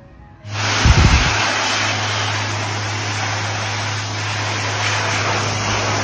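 Dyson Airblade Wash+Dry tap's built-in hand dryer blowing: a loud, steady rush of air with a low hum, switching on about half a second in, with a brief low thump about a second in.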